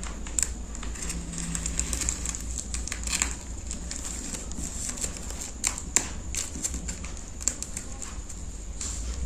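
Plastic parcel wrapping crinkling and crackling as fingers pick at its taped edge, with scattered sharp clicks, over a steady low hum.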